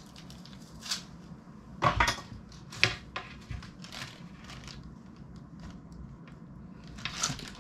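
Cable plugs clicking into the ports on the back of a Dell OptiPlex 3070 Micro mini PC, and the small case being handled on a desk: a handful of sharp clicks and knocks, the loudest about two seconds in.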